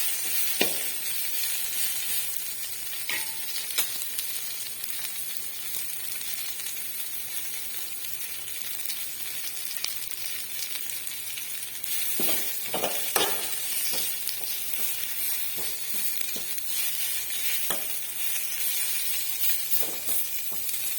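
Greens sizzling as they are sautéed in hot coconut oil, with the occasional scrape and clink of a spoon stirring them in the pan, several strokes close together about twelve seconds in.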